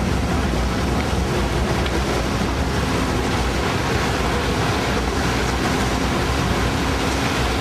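Steady wind noise and rushing sea water on the deck of the Japan Coast Guard patrol ship Suzuka underway, over the low rumble of the ship's engines.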